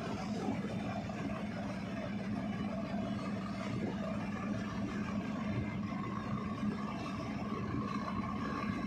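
Steady low drone of the ro-ro ferry Portlink III's engines and propellers as it manoeuvres astern into its berth, with water churning. A higher steady whine joins about two-thirds of the way through.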